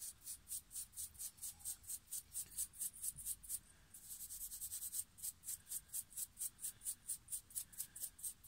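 Fine steel wool rubbed in quick back-and-forth-free strokes along a small balsa float body, about five strokes a second, running together into continuous scrubbing for about a second near the middle. It is a light rub-down of the dried first coat of sealer, smoothing the surface and the edges of the flutes.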